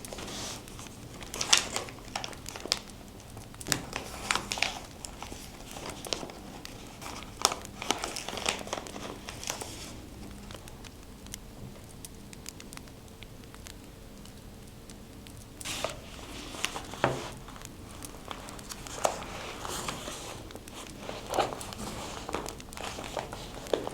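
Paper being handled: crinkling and rustling in irregular bursts with scattered small clicks, easing off into a quieter stretch in the middle before picking up again.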